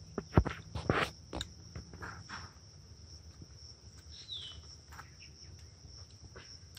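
Steady high-pitched insect drone of crickets, with a few sharp clicks and a loud thump in the first second and a half. A short falling bird chirp comes about four seconds in.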